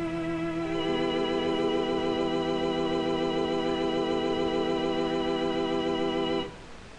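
Electric combo organ holding a final chord with a wavering vibrato, more notes joining about a second in, then cut off suddenly about six and a half seconds in.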